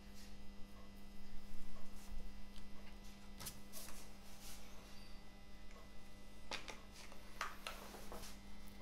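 A steady electrical hum, with scattered small clicks and rustles as a small metal tube is handled and set down on a workbench, most of them about three and a half seconds in and again from about six and a half seconds.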